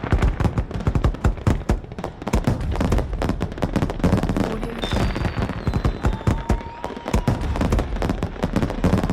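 Fireworks display: a dense, continuous run of sharp bangs and crackling bursts, with a falling whistle from a rocket about five seconds in.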